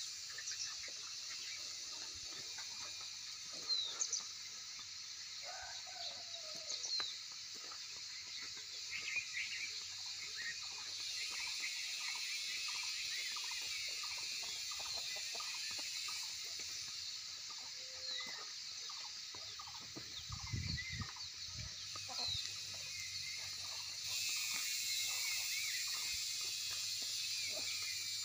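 Farmyard chickens calling and clucking now and then, with short bird chirps over a steady high hiss.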